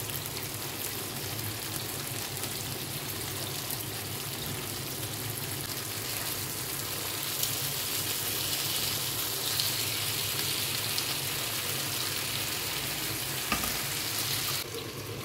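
Marinated chicken pieces sizzling in hot cooking oil on a grill pan, a steady hiss. A single light knock of the turning utensil against the pan comes near the end.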